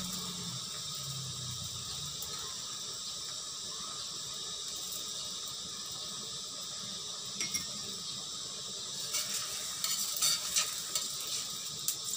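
Oiled stuffed paratha frying on a hot tawa, a steady sizzle. From about nine seconds in, a run of short scrapes and taps joins it as the paratha is worked on the pan.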